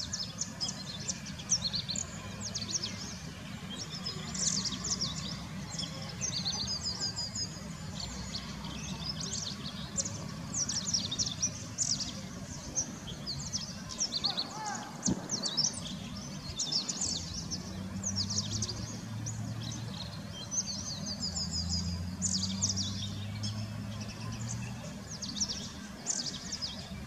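Many small birds chirping and trilling in forest, a steady chorus of short high calls, over a low steady hum.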